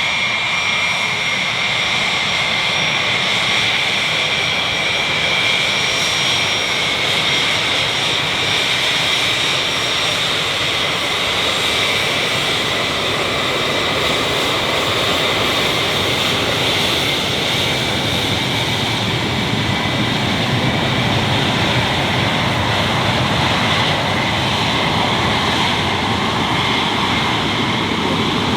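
Cessna Citation CJ1 business jet's twin Williams FJ44 turbofans running steadily, a constant rush with a high whine over it; the highest whine fades out about ten seconds in.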